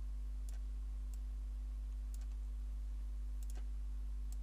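Computer mouse clicking about six times at irregular intervals, two of them close together in the second half, over a steady low electrical hum.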